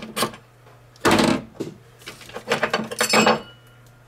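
A ratchet's last couple of clicks, then two bursts of metal clinking and scraping as the battery hold-down bolt comes out and the metal hold-down bracket is worked loose.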